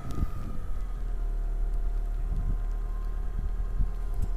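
Silver first-generation Mitsubishi Outlander's engine idling steadily, just started and held on the brake before pulling away.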